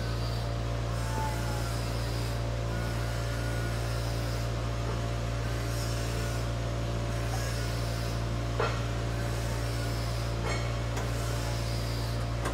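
Steady low machine hum with several even tones, running at a constant level, with a couple of short clicks around the middle and later on as sheet steel is handled at a pedestal spot welder.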